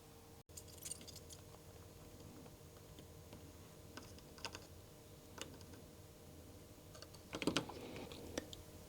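Faint, scattered light clicks and taps of small tools and components being handled while through-hole parts are soldered onto a circuit board, with the loudest cluster near the end.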